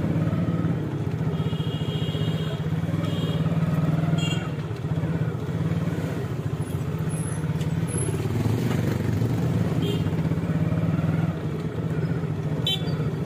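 Busy town road traffic with a steady low engine drone from motor vehicles, and a few short high-pitched beeps in the first few seconds.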